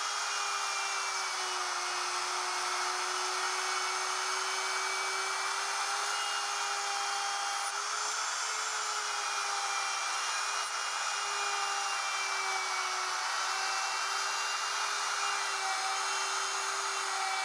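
Plunge router running steadily while cutting a shallow recess into a plywood workbench top: a motor whine over the hiss of the bit cutting, its pitch dipping slightly now and then as the bit takes load.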